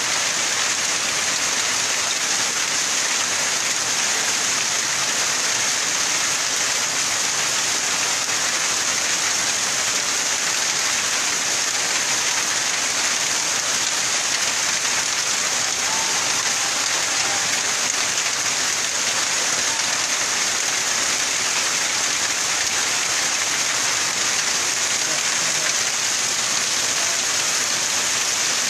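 Heavy, steady downpour of rain, an even hiss of rain falling on surfaces with no let-up.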